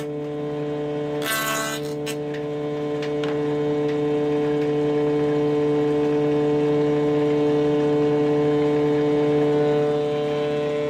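Electric wood planer (randa machine) running steadily with a constant hum. A short, louder burst of cutting noise comes about a second in.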